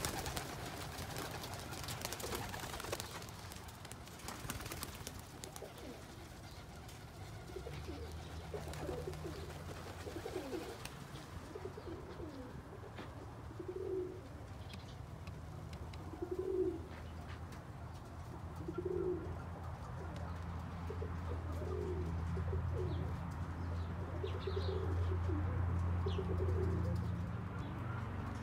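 Birmingham roller pigeons cooing, short low coos repeated every couple of seconds, over a low steady hum. A rustling flurry runs through the first few seconds.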